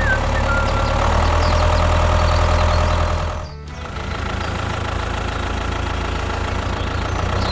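An engine running steadily under background music. Both dip briefly about three and a half seconds in, then carry on.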